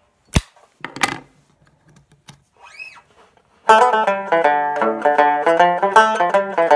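A sharp click and a brief rustle of handling, then a 1937 Bacon tenor banjo starts playing about three and a half seconds in: quick, bright picked notes of a lively Irish tune.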